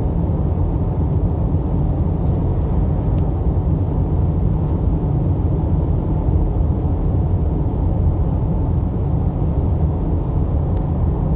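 Car driving along a road: a steady rumble of tyre, road and engine noise.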